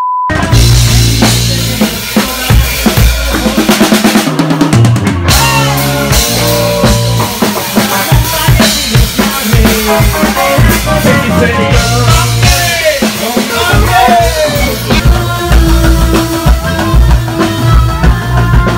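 Background music with a full drum kit playing a steady beat under bass and melodic lines; the drums drop out briefly about four seconds in.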